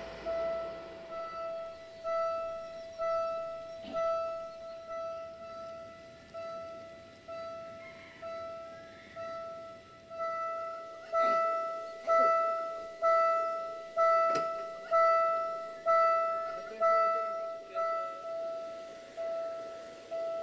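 Level-crossing warning bell ringing one ding about every second, each strike fading before the next and growing louder from about halfway through. It signals that a train is approaching the crossing. A few sharp clicks sound over it.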